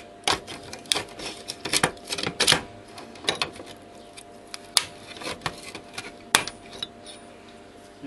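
Pincers clicking, snapping and scraping on the metal bracket and solder joints of a circuit-board transformer as it is levered off the board. A rapid run of sharp clicks in the first few seconds, then fewer, with two loud snaps in the second half.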